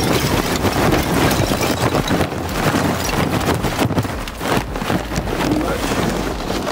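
Lump charcoal poured from its bag into the ceramic firebox of a Big Green Egg kamado grill, the lumps clattering and knocking against each other and the firebox in a dense, continuous rattle.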